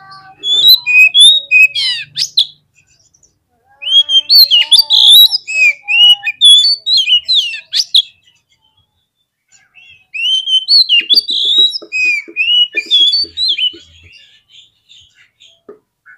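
Oriental magpie-robin (kacer) singing: three bursts of quick, varied whistled phrases with short pauses between them.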